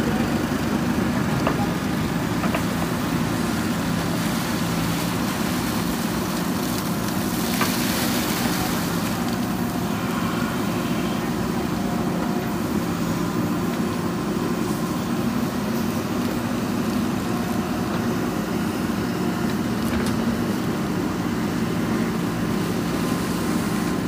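JCB 3DX backhoe loader's diesel engine running steadily while the backhoe arm digs a trench, with a brief hiss about eight seconds in.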